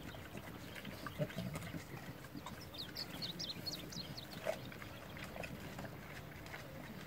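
A herd of javelinas (collared peccaries) feeding close by: quiet animal sounds with scattered small knocks. There is a quick run of short high chirps about three to four seconds in.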